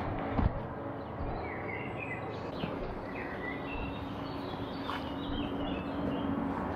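Small birds chirping with short high calls through the middle, over a steady outdoor hiss, with a low thump early on.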